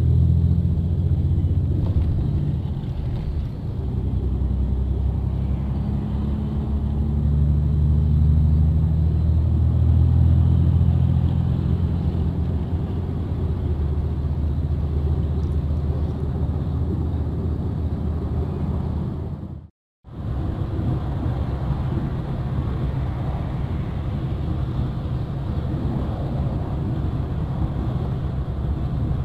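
Steady engine drone and road rumble from inside a large highway vehicle at cruising speed. The engine note rises and swells in the first third, then fades into an even road hum. The sound cuts out completely for about half a second roughly two-thirds of the way in.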